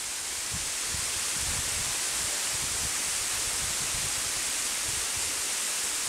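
Tall waterfall pouring down a sheer rock cliff: a steady, hissing rush of falling water and spray.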